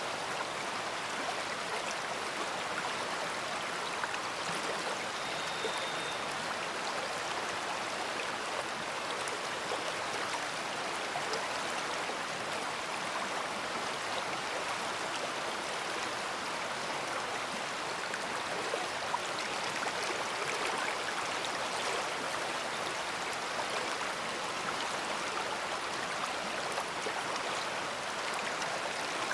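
Big river flowing: a steady, even rush of moving water.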